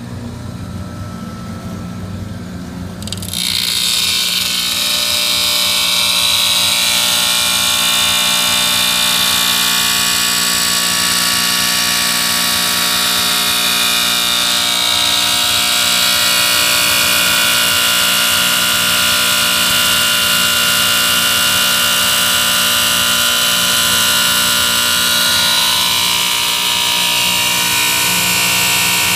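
A power grinder grinding steadily with a loud, high-pitched whine that starts abruptly about three seconds in. Before that there is only a low hum.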